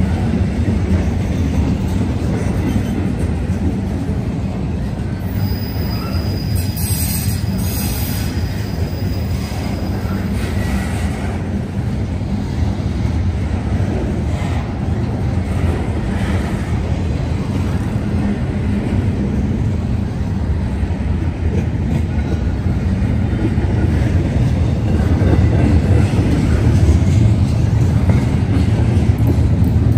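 Double-stack intermodal freight train's well cars rolling past, a steady rumble of steel wheels on rail that grows a little louder near the end. A brief high wheel squeal comes in about five seconds in and lasts a few seconds.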